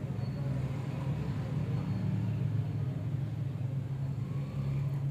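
Chicken pakora pieces deep-frying in hot oil, bubbling and sizzling, over a steady low rumble that is the loudest part of the sound.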